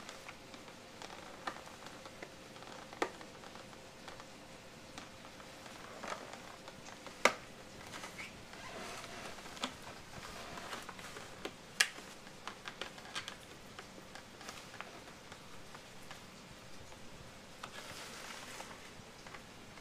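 A cat rubbing and pushing a plastic clamshell box of strawberries across a hardwood floor: scattered light taps and crinkles of the plastic, with two sharper clacks, one about seven seconds in and one about twelve.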